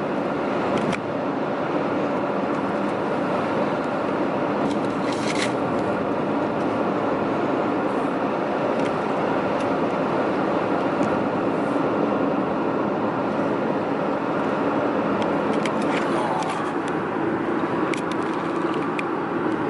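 Steady road and wind noise inside a car cruising at highway speed, with a few brief clicks and knocks.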